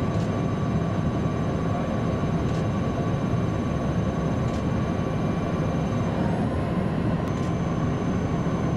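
Steady drone of an aircraft's engines and rushing air, heard from inside the cabin, with a thin steady whine running through it.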